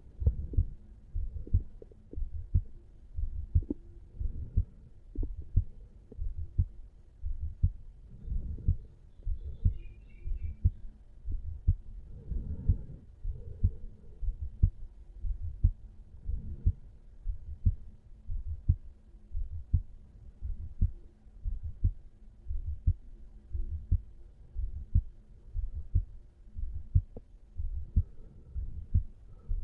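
Heartbeat of a resting adult man, recorded over the mitral (bicuspid) valve area: a steady, regular train of low thumps.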